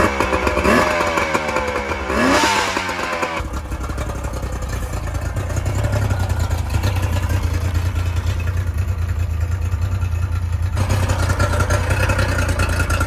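Yamaha 50 hp tiller outboard running out of the water on its trailer, with a garden hose supplying cooling water. It is revved in rising and falling sweeps, then about three seconds in it settles to a steady, lower run.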